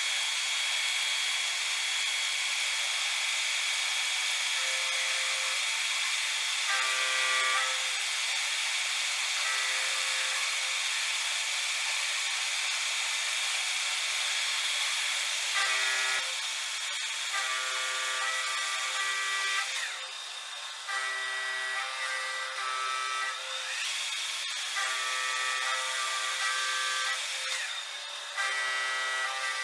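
Metal-turning lathe running with its chuck spinning, a steady whir with a high whine, then switched off about two-thirds of the way through. Short held pitched tones come and go over it throughout.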